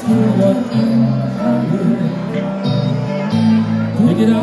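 Live band playing amplified music through a PA: guitars, keyboard and drums over a strong, steady bass line.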